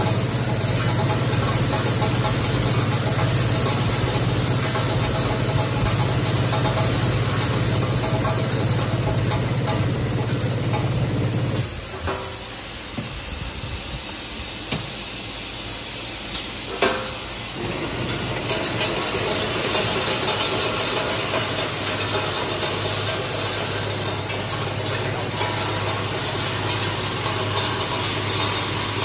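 Automatic screw and bonded washer assembly and packing machine (Zen-Young ZYL-75) running: a steady low hum with a hiss of machinery. In the middle the hum drops away for several seconds and a few sharp clicks of the mechanism stand out, then the hum returns, quieter.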